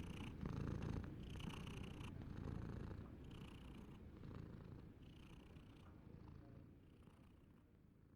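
Domestic cat purring, in steady repeating breaths about once a second, gradually fading away toward the end.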